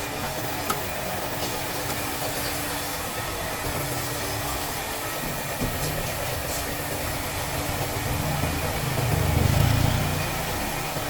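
Steady engine-like running noise with hiss; a low rumble swells louder about nine seconds in, with a couple of light clicks.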